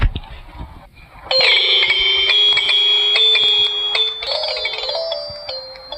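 A phone ringtone: a chime-like electronic tone begins about a second in, holds one note, then steps up to a new set of notes about four seconds in and fades out.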